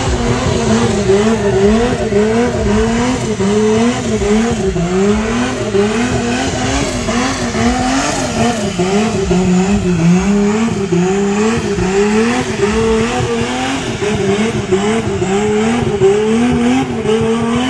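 Red BMW E30 3 Series revving hard in a burnout, its engine note climbing and dropping over and over, a little faster than once a second, as the throttle is worked, with tyres squealing.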